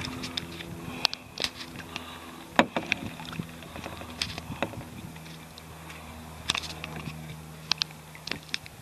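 Scattered light knocks and water drips around a kayak on calm water, over a faint steady low hum.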